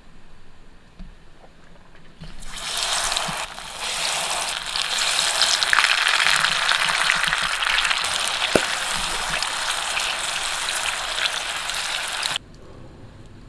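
Food sizzling and crackling in a hot pan. It starts about two seconds in, grows louder and cuts off abruptly near the end.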